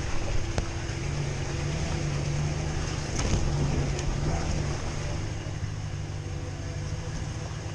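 Ram full-size pickup truck's engine running steadily at low revs while crawling along an off-road trail, with a few short sharp knocks.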